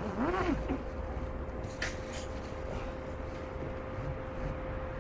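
Steady mechanical hum, like a vehicle engine running, with a constant whining tone over it. A short rising-and-falling hum from a man's voice at the start, and one sharp click about two seconds in.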